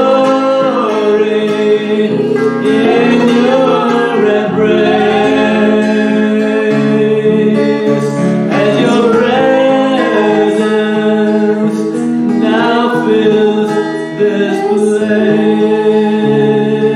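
Worship music: singing over guitar and steady sustained chords.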